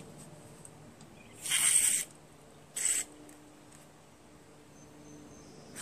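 Two hisses of an aerosol cleaner sprayed through a straw into the carburetor passages of a Honda GCV160 engine, the first about half a second long, the second shorter about a second later.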